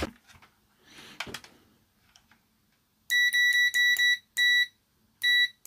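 Multimeter continuity beeper sounding in a string of steady high beeps, some long and some short, as the probes are touched across a fuse: the beep shows the fuse is intact.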